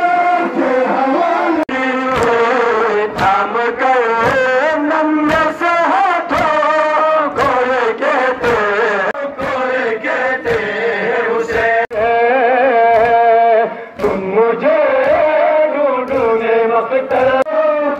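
Men's voices chanting a noha lament, with matam chest-beating striking in time, about two strikes a second. There is a brief break about fourteen seconds in.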